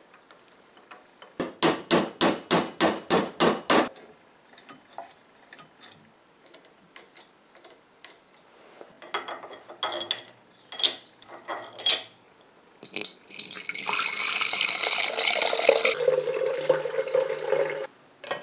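A quick, even run of about eleven metallic strikes, then scattered clicks and knocks of metal parts being handled. For the last few seconds the loudest sound: liquid sloshing and swirling in a glass cafetière as its plunger is worked up and down with a roller chain inside, stopping suddenly.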